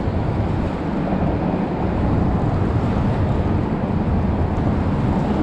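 Steady wind noise buffeting an action camera's microphone that has no wind cover, heaviest in the low end.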